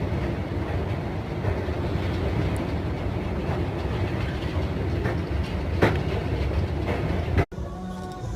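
Steady low rumble of a moving vehicle, with a single sharp click almost six seconds in; the rumble cuts off abruptly near the end.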